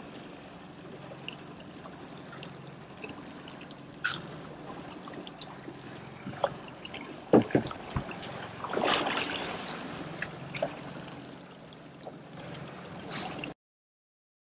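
Boat outboard motor running steadily with water lapping and splashing at the hull, and a few sharp knocks and splashes from handling on board; the sound cuts off abruptly to silence near the end.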